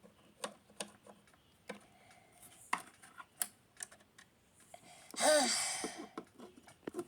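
Scattered, irregular clicks and taps of small toy figures being handled and set down on a hard surface. About five seconds in comes a louder breathy, wavering vocal sound from a child.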